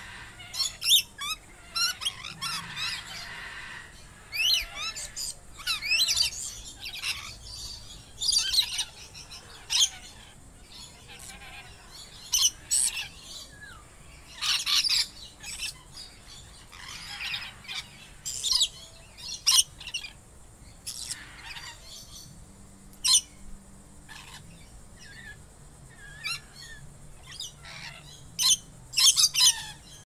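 A parrot calling in a long run of short, high squawks and chirps, irregularly spaced, some sliding quickly in pitch, with a few louder harsh squawks among them.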